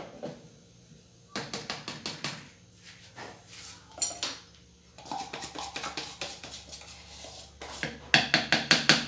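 A cup tapped against the rim of a blender jar to knock flour into it: a quick run of about eight knocks about a second and a half in, and another run of about six near the end.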